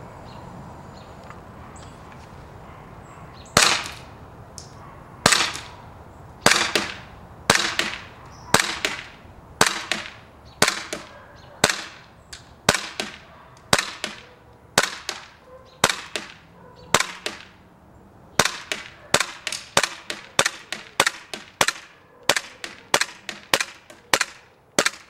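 KSC Glock 17 gas blowback airsoft pistol firing 0.3 g BBs, a string of about twenty sharp shots: first about one a second, then faster, about two a second, until the magazine is empty.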